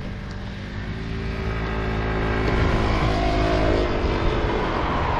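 A motor vehicle's engine approaching and passing close by, growing louder through the first three seconds, with its pitch dropping slightly as it goes past, over a low road rumble.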